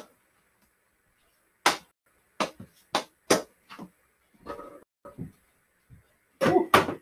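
Irregular sharp knocks and smacks of a hockey stick striking a small hard ball, with the ball hitting the floor and wall, in a small room. About a dozen hits, the loudest cluster near the end.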